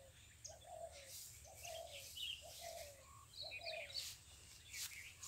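Birds calling in woodland: one bird repeats a short, low call note steadily, a little more than once a second, while other birds add higher chirps and twitters.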